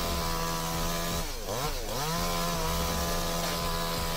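Chainsaw engine running at high revs; about a second and a half in the revs drop off briefly and rise back up, then hold steady again.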